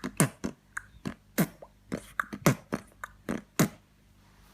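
A man beatboxing: short mouth-made kick-drum thumps that drop in pitch, mixed with sharp snare and hi-hat clicks in a quick rhythm, stopping near the end.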